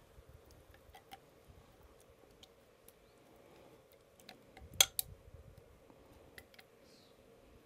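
Red silicone spatula scraping thick yellow mustard out of a glass measuring cup into a stainless steel saucepan: faint scraping with scattered light clicks, and two sharp knocks close together about five seconds in.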